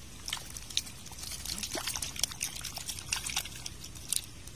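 Water trickling and splashing around a mesh keep net full of freshly caught river fish, with irregular small splashes and drips.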